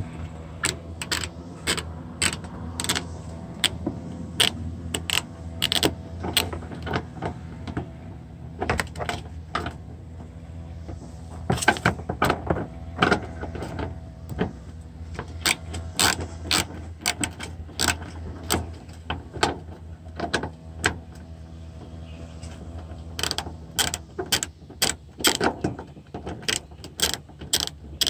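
Hand ratchet with a 10 mm socket clicking in irregular runs of quick clicks while a stubborn bumper bolt is worked loose, over a steady low hum.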